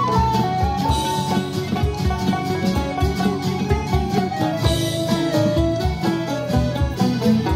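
Live folk-rock band playing an instrumental break: a lead melody line stepping slowly downward over strummed guitars and a steady drum beat.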